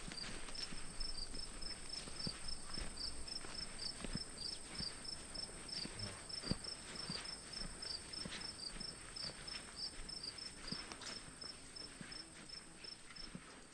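Crickets chirping in a regular rhythm, a few short high chirps a second, over a continuous high-pitched insect trill, with scattered soft knocks of footsteps.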